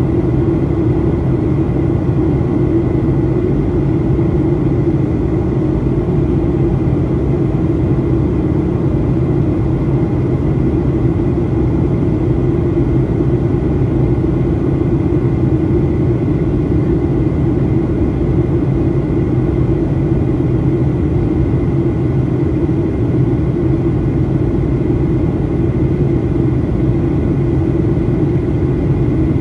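Boeing 737-800 in flight heard from inside the cabin at a seat beside the wing: the steady drone of its CFM56-7B turbofan engines and the airflow, a deep even hum with a faint high steady whine above it.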